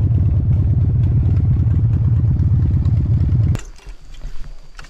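Harley-Davidson V-twin motorcycle engine running steadily at low speed, heard close from the bike itself. It cuts off abruptly a little past three and a half seconds in, leaving only faint clatter.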